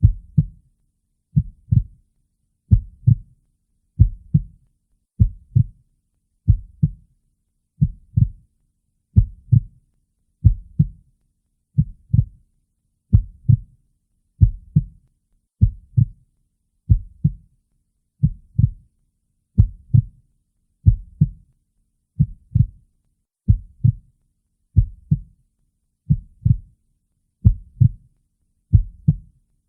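Heartbeat: a slow, steady lub-dub, each beat a pair of low thumps, about 45 beats a minute.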